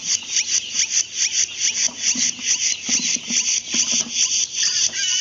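Broiler chicks peeping loudly and without a break, a fast stream of short high chirps that fall in pitch, several a second.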